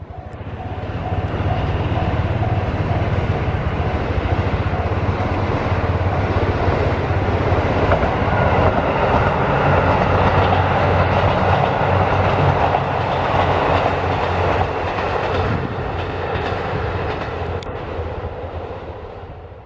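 JR Kyushu limited express Aso Boy, a KiHa 183 series diesel train, running past: a steady rumble of diesel engines and wheels on rail. It builds up over the first couple of seconds and fades away near the end.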